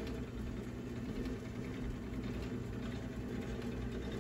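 Compact Showtime rotisserie oven running, a steady hum from its spit motor as it turns the chicken.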